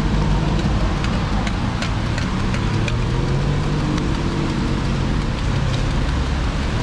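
Steady rumble of road traffic, with a few light clicks in the first half.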